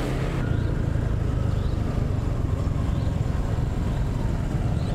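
Motorcycle engine running at a steady speed while riding, a continuous low rumble with road noise.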